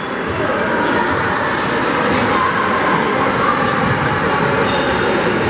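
Gymnasium crowd noise at a basketball game: many spectators talking and calling out at once, with short high squeaks of sneakers on the hardwood court.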